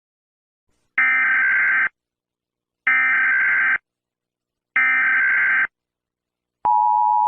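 Emergency Alert System alert tones: three short screeching digital data bursts of the SAME header, each just under a second long and about a second apart. Near the end the steady two-tone EAS attention signal begins. Together they announce an emergency alert, here a tornado warning.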